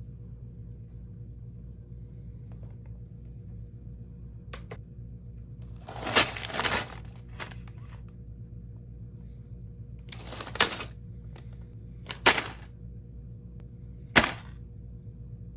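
Steady low hum with four short bursts of rustling and crinkling from handling packaging, the first and longest about six seconds in, with a few faint ticks between.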